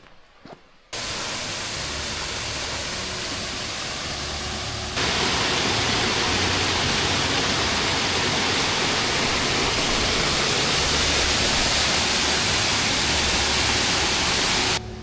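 Rushing water of a mountain stream or waterfall, a loud, steady hiss. It starts abruptly about a second in, gets louder about five seconds in, and cuts off just before the end.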